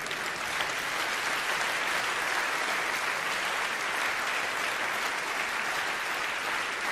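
Large audience applauding steadily, a sustained round of clapping in response to a joke.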